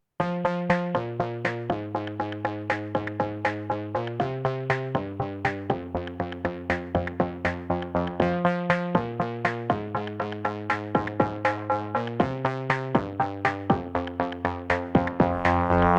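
Electronic outro music: a synthesizer riff of quick, evenly spaced plucked notes, about four a second, over sustained chords that change every second or so.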